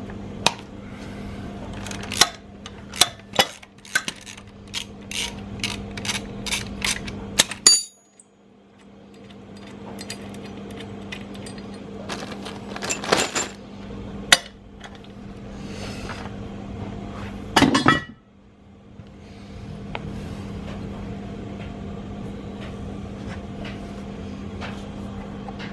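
Hand tools and bolts clinking and knocking against the metal of an SR20DET engine as it is stripped down, in irregular sharp clicks with a cluster near the middle and end, over a steady low hum.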